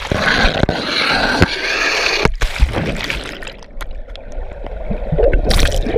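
Water rushing and splashing as a rider shoots off the end of a water slide into the pool. About two seconds in the sound turns muffled as the waterproof action camera goes underwater, and a burst of splashing comes near the end as it breaks the surface again.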